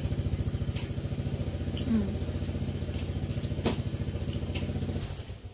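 Motorcycle engine idling steadily while being warmed up, then dying away about five seconds in. A few sharp clicks sound over it.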